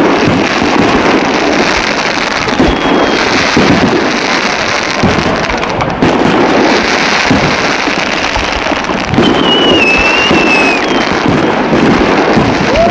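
A New Year fireworks display: dense, continuous crackling with repeated sharp bangs from bursting shells. A wavering whistle sounds about two thirds of the way through.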